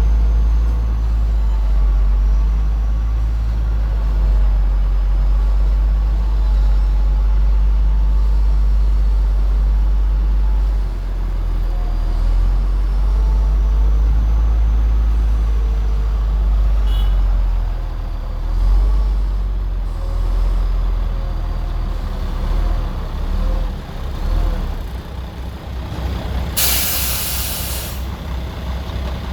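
Heavy diesel earthmoving machinery running with a deep, steady rumble that rises and falls with load. Near the end there is a loud hiss of released air lasting about a second and a half, like a truck's air brake.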